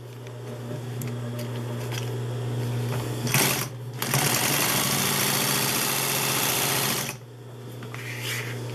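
Consew 206RB walking-foot industrial sewing machine stitching a test seam to check the top thread tension, with its motor humming steadily throughout. It runs faster and louder from about four seconds in, with a short clack just before, and stops abruptly just after seven seconds, leaving the motor hum.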